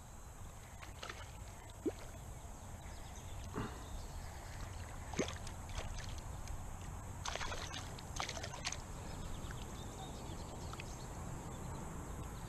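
Creek water sloshing, with several short splashes as a small crappie is hooked, fights at the surface and is lifted out of the water.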